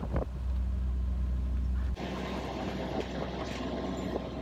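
Small sailboat's engine droning steadily as the boat motors across calm water, with wind and water noise on the microphone. About halfway the sound changes abruptly: the heavy low rumble drops away and a brighter hiss comes up.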